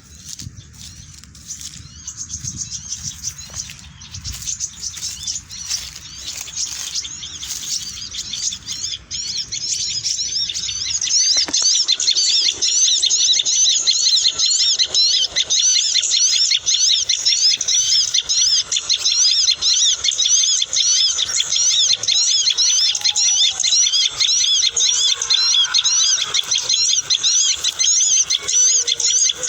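Many small birds chirping in a dense, rapid, high-pitched chorus. It is fainter at first, then gets much louder about ten seconds in and continues without a break.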